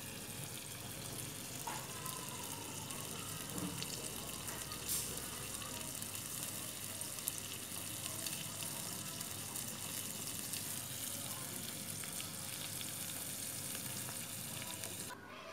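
Scallops in their half shells sizzling with scallion oil on a charcoal grill: a steady crackling hiss, which cuts off suddenly near the end.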